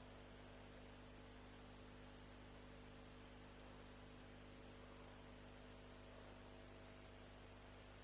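Near silence: a steady electrical hum with faint hiss.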